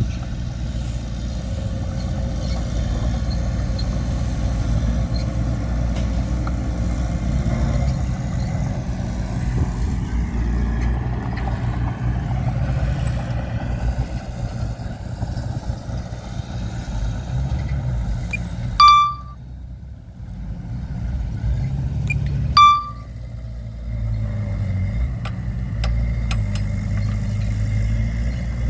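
Heavy diesel earthmoving machinery running with a steady low rumble. Two short, loud, high beeps come about four seconds apart near the end, each followed by a brief dip in the engine sound.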